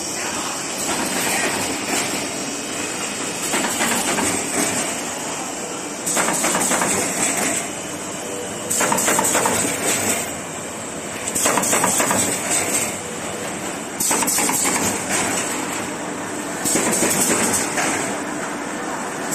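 Automatic corrugated paperboard partition assembly machine running, with a steady mechanical clatter and a louder hissing surge that repeats about every two and a half seconds.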